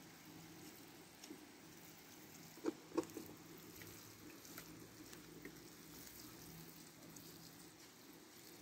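Faint patter of water from a plastic watering can's rose sprinkling onto soil, with two short knocks close together about three seconds in.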